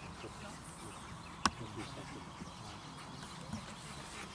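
Faint sounds from a Rottweiler over low background noise, with one sharp click about a second and a half in.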